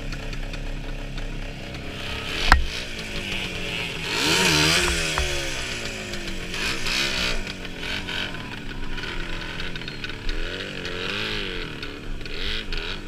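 Several small two-stroke scooter engines revving up and down through mud, the rider's own engine close and others behind it, with the pitch swelling and falling again and again. A single sharp knock comes about two and a half seconds in.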